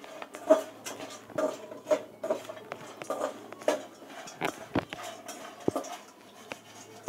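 Peanuts rattling and clinking against a steel pot as a hand stirs and grabs them, with irregular sharp knocks of metal.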